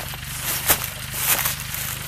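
Small farm tractor engine running with a fast even beat as the tractor works a furrow through dry sugarcane trash, with sharp crunching noises about every two-thirds of a second.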